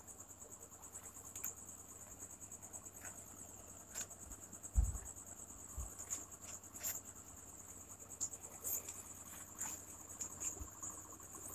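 Faint, steady trilling of crickets, with a few soft clicks and low knocks scattered through it.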